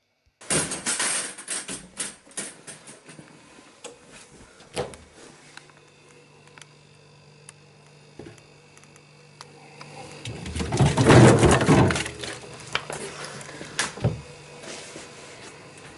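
Clicks, knocks and rattles of a plastic bottle being handled and taken out of a refrigerator with wire shelves. A steady hum runs through the middle, and a louder stretch of rustling and clattering comes a little after the middle.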